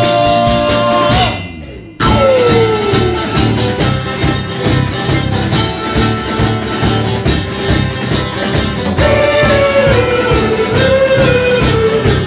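Folk-rock band playing an instrumental passage on guitar, tiple, drums and bass with a steady beat. The music fades out about a second in and comes back in sharply at about two seconds.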